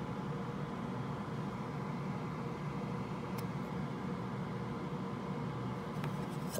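Steady machine hum with a low whir and hiss, joined by a faint click about three and a half seconds in and a few faint clicks near the end.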